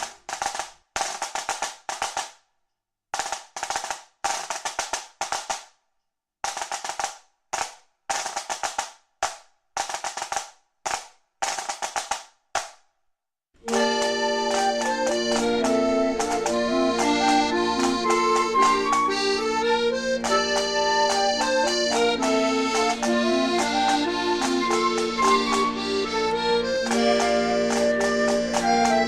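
Instrumental music with no singing. The first half comes in short stabs broken by silences, then from about halfway it plays on steadily, with a held low note under a moving melody.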